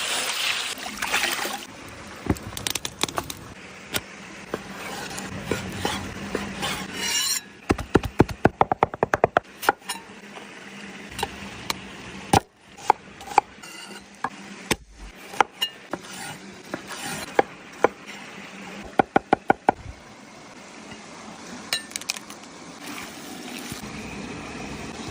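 Cooking utensils clinking and knocking against pots and dishes, with two runs of quick, evenly spaced sharp strikes over a steady background.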